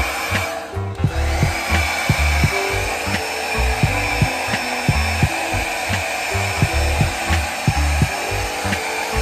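Handheld hair dryer blowing steadily on its hottest, strongest setting: a steady rush of air with a thin motor whine, dipping briefly about a second in. Background music with a steady beat plays underneath.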